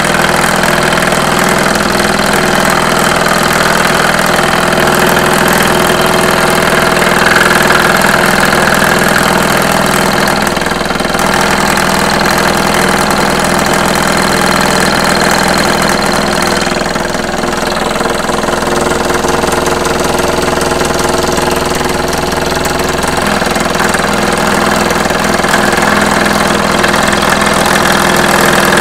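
Scroll saw running steadily and loudly, its blade cutting through two pieces of hardwood (black palm and amboyna) taped together.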